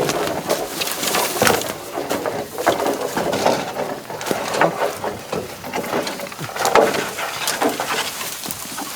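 Bamboo poles being handled, knocking and clattering against each other in irregular hollow wooden knocks.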